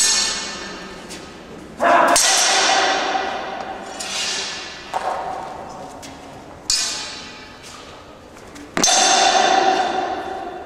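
Steel longswords clashing blade on blade about six times. Each sharp strike rings on and slowly dies away.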